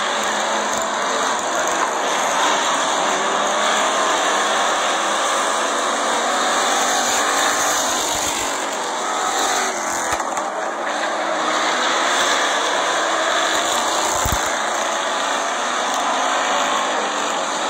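Several Pure Stock race cars running at speed around a short oval track, their engines blending into a steady, continuous race noise.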